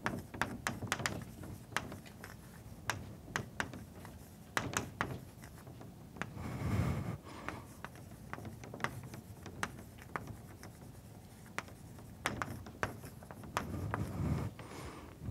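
Chalk writing on a blackboard: an irregular string of sharp taps and short scratches as letters are written, in a small, reverberant room.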